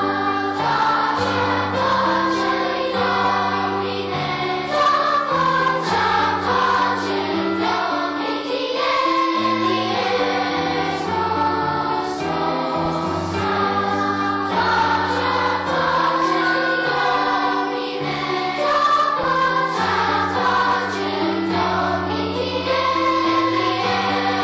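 Elementary-school children's choir singing a seasonal song over low accompanying notes, the melody moving in held notes.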